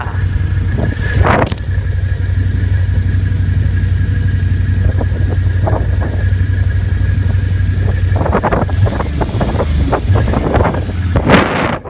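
ATV engine running at a fairly steady speed, with rubbing and bumping on the microphone: sharp bursts about a second in and just before the end, and a cluster of short knocks in the last few seconds.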